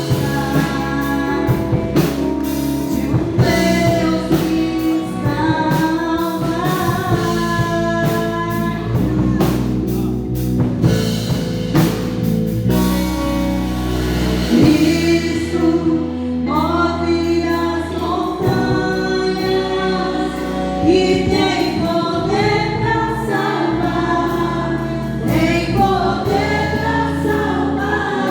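Gospel worship song: several voices singing together over a band with drums and bass. The drums drop out for a moment about halfway through, then come back in.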